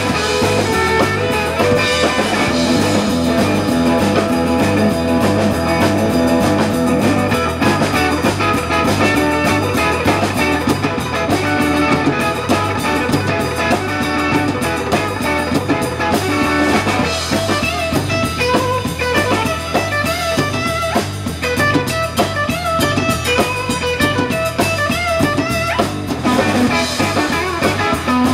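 Live blues-rock band playing an instrumental passage: electric guitar over bass and drum kit with a steady beat.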